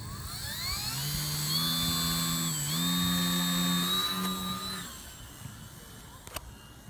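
Electric motor and 10x4.5 propeller of a small foam RC plane spinning up with a rising whine, holding a steady high whine with a brief dip in pitch, then cutting off about five seconds in. A single sharp click near the end.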